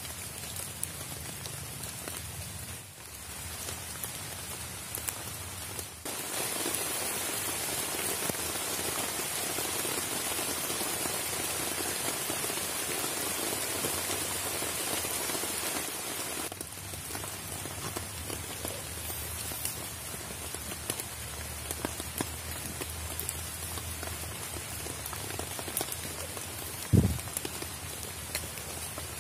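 Steady rain falling, heavier for about ten seconds in the middle, with a single dull thump near the end.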